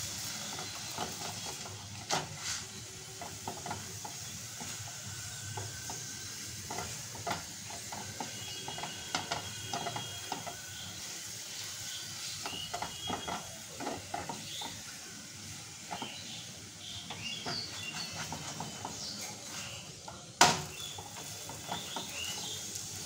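Paneer paratha frying in a little oil in a non-stick pan, sizzling and crackling softly as a silicone spatula presses it down. A sharp click near the end.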